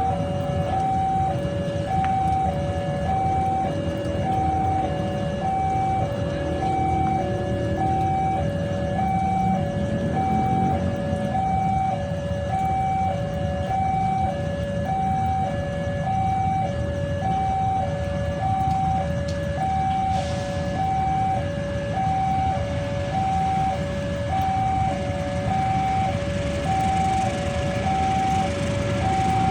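Railway level-crossing warning alarm sounding a steady two-tone alternating signal, high then low, about once a second, which warns that a train is approaching. Heavy rain hisses underneath.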